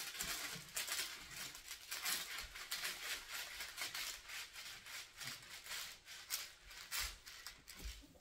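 Hands sliding and pressing over the clear plastic top-cover film of a diamond painting canvas, smoothing it flat: a quick run of soft rustling swishes that thins out near the end.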